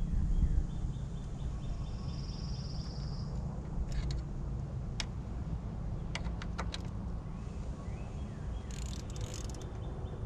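Scattered light clicks and taps of hand tools and metal parts as bolts on the engine's valve cover area are tightened, over a steady low rumble of background noise.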